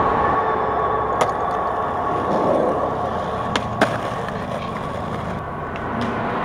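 Skateboard knocking against a concrete ledge: a few sharp clacks, the loudest a little under four seconds in, over steady street noise.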